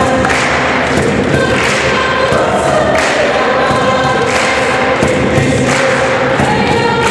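Mixed youth choir singing a gospel song in repeated phrases of held notes, with repeated thumps running under the singing.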